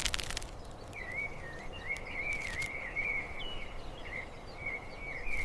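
Outdoor ambience: a steady hiss with a thin, high, warbling tone that wavers up and down, starting about a second in and running almost to the end.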